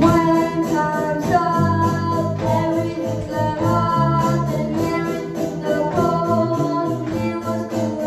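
Live band music: electric guitar, electronic keyboards and a drum kit playing a song, with a young boy singing into a microphone.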